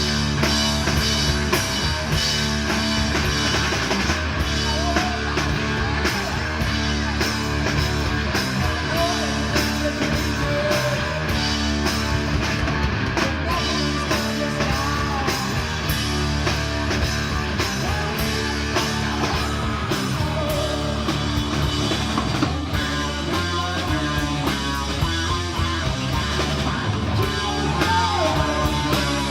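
Rock music with electric guitar and a drum kit playing steadily.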